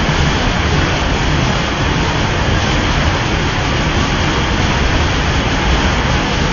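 Rushing water of a forest waterfall: a loud, steady, even rush with no breaks or changes.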